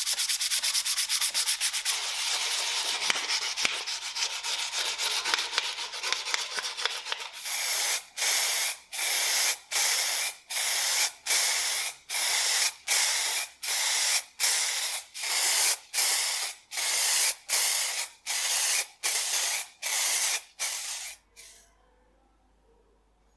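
Hand sanding of the primed metal part with a sanding sponge: fast, continuous scratchy strokes. About seven seconds in it gives way to a long run of short, even hissing bursts a little over one a second, aerosol spray paint going onto the part, which stop about 21 seconds in.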